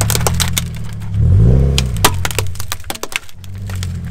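Wooden tabletop foosball table cracking and splintering under a car's tyre: a run of sharp cracks and snaps over the car's engine running, which rises and falls in pitch once about a second in.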